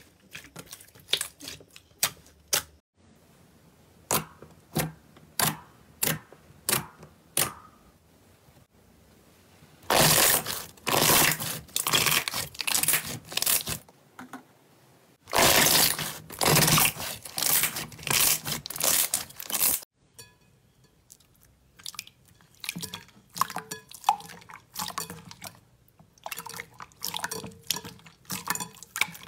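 Hands pressing and squishing slime, giving a run of sticky crackling pops and squelches, about two a second at first. Denser, louder stretches of squishing follow in the middle, then quicker, lighter crackles near the end.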